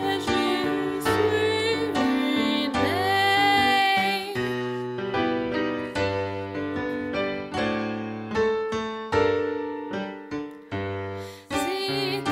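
A woman singing with vibrato to piano accompaniment. About three seconds in the voice stops, and the piano plays alone in struck notes and chords that ring and die away; the singing comes back near the end.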